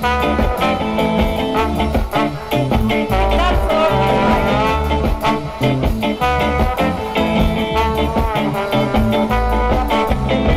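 Live band playing an instrumental passage with a steady beat, no singing.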